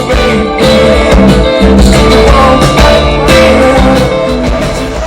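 Loud live rock music played over a concert sound system, with a heavy bass.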